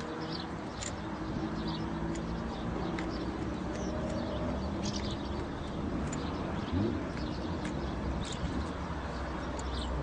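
Steady outdoor background noise with small birds chirping now and then, and a few faint clicks as diagonal cutters snip the stray braid wires of a coax cable at an N connector.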